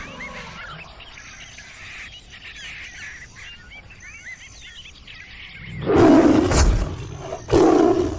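Faint bird chirping, then two loud, deep animal calls about a second long each, six and seven and a half seconds in.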